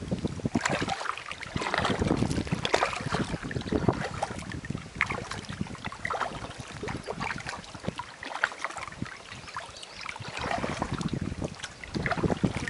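Kayak being paddled through calm water: paddle strokes dipping and splashing, swelling every second or two with drips and small splashes between, and some wind on the microphone.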